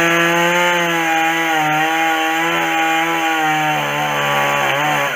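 Two-stroke chainsaw held at high revs, cutting into wood. Its engine note is steady, then drops away abruptly near the end.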